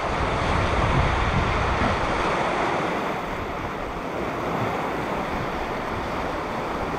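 Small sea waves washing and breaking on a sandy, rocky beach in a steady rush, with wind gusting on the microphone for the first couple of seconds.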